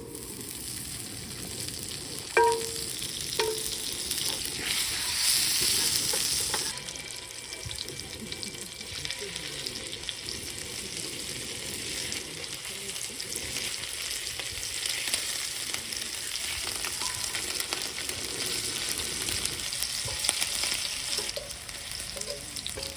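Food sizzling as it fries in a hot pan, a steady hiss that is loudest about five to six seconds in. Two short ringing metallic clinks come early, about a second apart.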